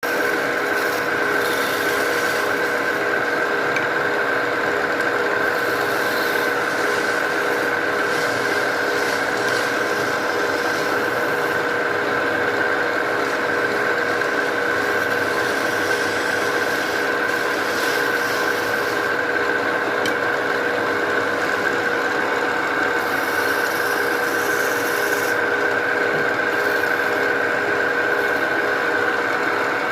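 Wood being worked against a running tool: a steady, unbroken rubbing and grinding with a constant high tone, never pausing.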